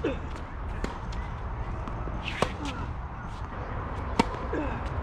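Tennis ball strikes: a few sharp knocks of ball on racket or court, the loudest a serve being hit about four seconds in, over a steady low rumble.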